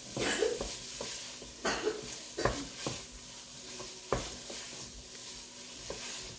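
Wooden spoon stirring food in a stainless steel pot, knocking and scraping against the pot at irregular intervals, over a steady sizzle from the pot.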